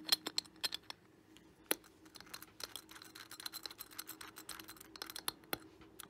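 Allen wrench turning the threaded screw of a puzzle box by hand: a quick, irregular run of small faint clicks and light scrapes, with one sharper click about a second and a half in.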